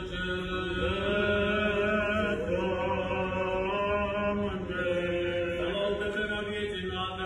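Orthodox liturgical chant: sung voices hold a slow melody that moves in steps over a steady low drone note.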